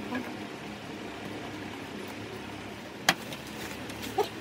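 Paper handled and pressed by hand around a coil former on a winding machine's spindle, with one sharp click about three seconds in and a smaller knock near the end, over a steady background hum.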